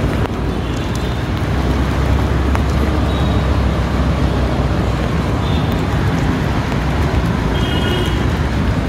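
Steady wash of heavy rain mixed with road traffic, with wind rumbling on the phone's microphone.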